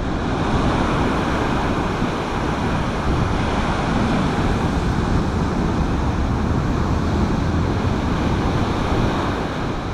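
Storm-driven sea surf breaking in a steady, loud wash, with strong wind blowing on the microphone.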